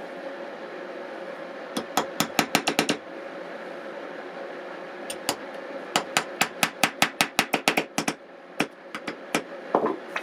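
Small cross-peen hammer tapping stainless steel rods down into adhesive-filled holes in a wooden board: a quick run of about eight light strikes, then a longer run of about a dozen, then a few scattered taps near the end.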